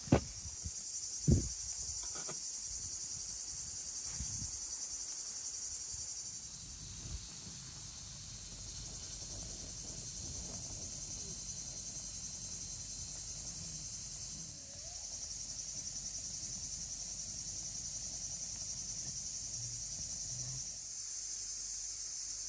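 Steady high-pitched insect chorus, with two sharp knocks about a second apart at the start.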